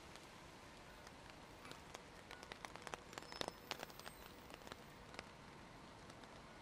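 Faint steady rain, with many sharp raindrop ticks landing close by that come thickest in the middle few seconds.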